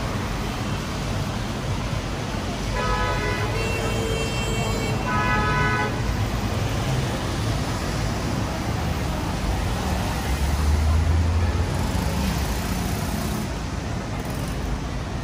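City road traffic running steadily, with car horns honking three short times between about three and six seconds in. A deep rumble of a passing heavy vehicle comes in around ten seconds in and is the loudest moment.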